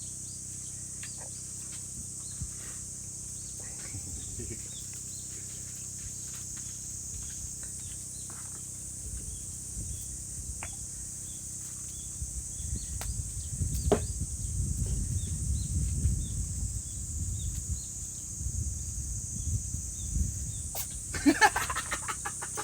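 A cat sneezing: two sharp bursts near the end, over a steady high drone of insects and a low rumble.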